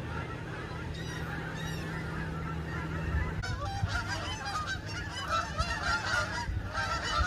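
A large flock of geese honking, many calls overlapping, growing denser about three and a half seconds in.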